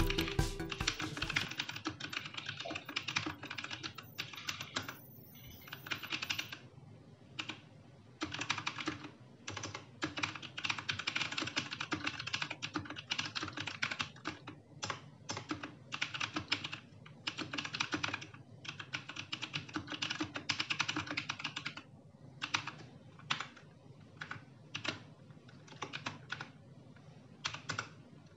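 Typing on a Rexus Legionaire MX3.1 mechanical keyboard fitted with brown switches: rapid key clacks in bursts, with short pauses between runs.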